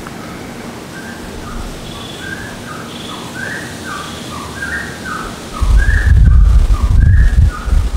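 Wild birds singing: a run of short, clear whistled notes, several a second, with a few fainter, higher calls early on. About two-thirds of the way in, a loud low rumble sets in underneath the birdsong.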